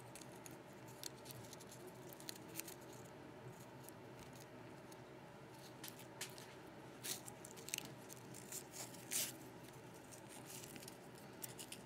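Faint handling sounds of floral tape being wrapped around a wire stem of beaded lilac sprigs: soft rustling with scattered small clicks, a few of them a little louder near the middle.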